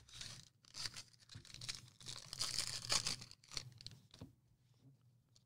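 Plastic wrapping on trading cards being torn open and crinkled by hand, in a series of ripping bursts, the longest and loudest about two to three seconds in, stopping about four and a half seconds in.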